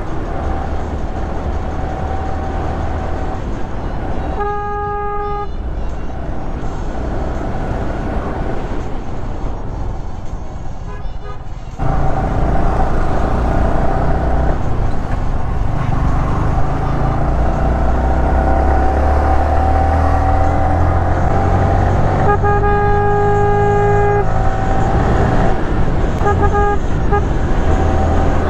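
Yamaha R15 V3 single-cylinder motorcycle engine running under way, with wind on the helmet-mounted microphone. Its pitch rises as it pulls through the gears, and it gets louder about twelve seconds in. A vehicle horn honks about four seconds in, again for about two seconds two-thirds of the way through, and briefly near the end.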